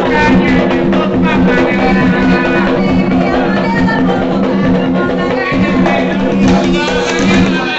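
Atabaque hand drums played together in a fast, continuous rhythm, the skins struck with bare hands.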